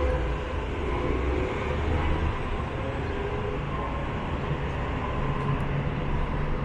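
Steady low rumble of downtown traffic noise with a few faint steady tones, with no single event standing out.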